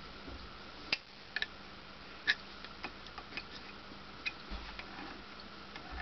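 Irregular small clicks and taps as alligator test clips are moved and pressed onto the lamp contacts of an elevator call-button panel, about a dozen in all with no steady rhythm; a soft low bump of handling a little past the middle.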